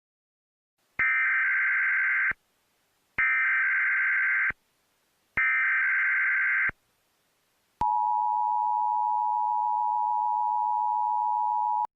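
Emergency Alert System header: three short bursts of SAME digital data tones, a bit under a second apart, then the steady two-tone EAS attention signal held for about four seconds.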